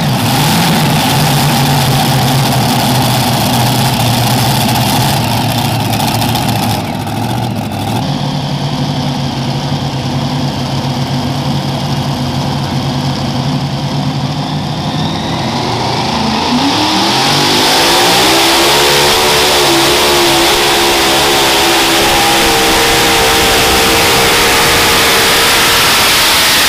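Multi-engine, alcohol-burning super modified pulling tractor engines running low and steady. About sixteen seconds in, they rev up in a rising pitch and hold at high revs as a tractor launches into a pull.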